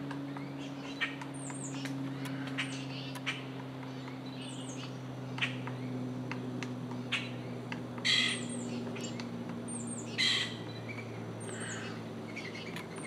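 Wild birds calling: repeated short, high thin chirps and scattered sharp clicks, with two louder harsh calls about eight and ten seconds in. A steady low hum runs underneath.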